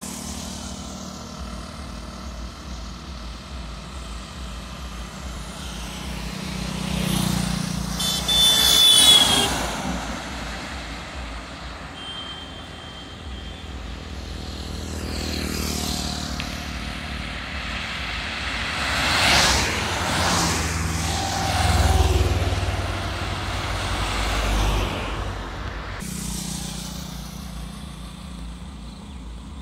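Road traffic passing at speed: about six vehicles go by one after another, each swelling and fading over a steady low rumble. The loudest pass is about nine seconds in, with a brief high tone over it.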